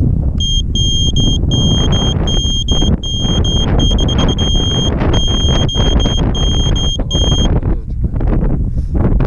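High-pitched electronic buzzer beeping in short, slightly uneven on-off beeps, about three a second, for roughly seven seconds. Heavy wind rumble on the microphone runs under it.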